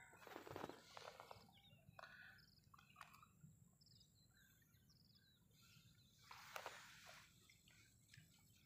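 Near silence outdoors, with faint bird chirps and a brief soft rustle about six seconds in.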